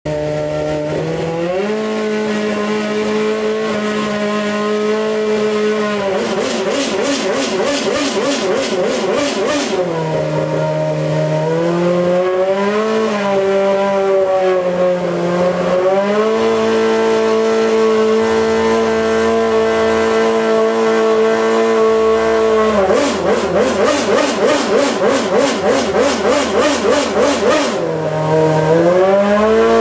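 2012 Red Bull RB8 Formula One car's 2.4-litre V8 engine running stationary in the garage at steady high revs. The pitch steps up and down every few seconds. About a fifth of the way in, and again near the end, there are spells of rapid, rhythmic pulsing.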